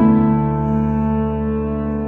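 Instrumental background music: a new chord sounds at the start and is held.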